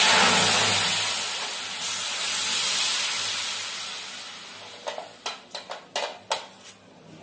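Cucumber puree hitting a hot steel kadhai and sizzling loudly, the hiss fading over a few seconds as the pan cools under the liquid. A few light knocks follow near the end.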